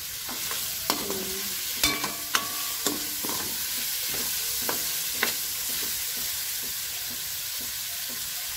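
Chicken, carrot strips and onion sizzling in a stainless-steel wok as a long-handled metal spoon stirs them. In the first half the spoon knocks sharply against the wok several times, some knocks ringing briefly. After that it goes on in quieter, even scraping strokes.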